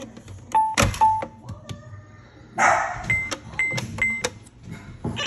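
VTech Phone Pals toy phone's plastic keypad buttons clicking as they are pressed, each press giving a short electronic beep: two lower beeps about half a second in, then three higher beeps in quick succession, dialing a call. A loud rustle of handling comes between them, and the toy's ringing tone starts right at the end.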